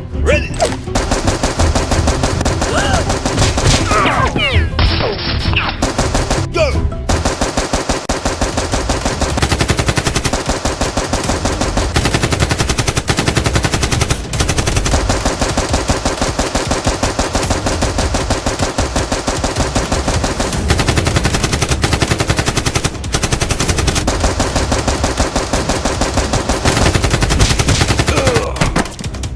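Rapid automatic gunfire in long, nearly continuous bursts, the dubbed-in firearm effects of a staged Nerf gunfight.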